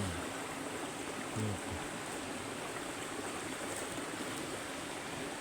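Steady rushing of flowing water, an even hiss that holds at one level throughout.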